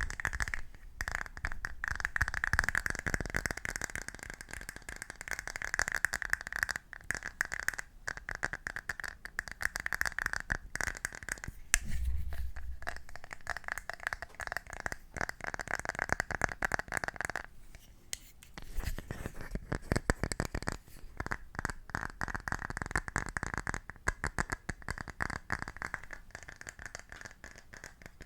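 Close-miked ASMR trigger sounds: rapid, dense tapping and scratching clicks with a ringing tone under much of it, easing off briefly about two-thirds of the way through.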